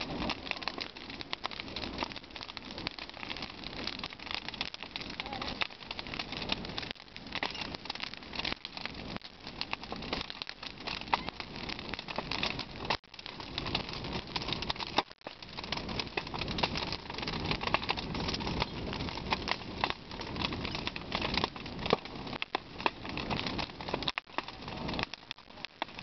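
Bonfire of brushwood, boards and old clothes crackling, with many sharp pops and cracks; the sound drops out briefly twice near the middle.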